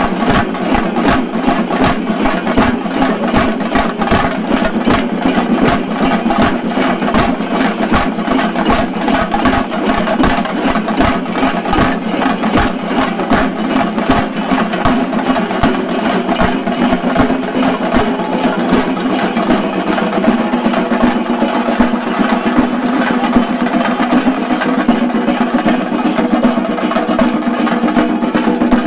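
Chenda drums of a shinkarimelam ensemble beaten fast with sticks: a loud, steady, dense stream of drum strokes.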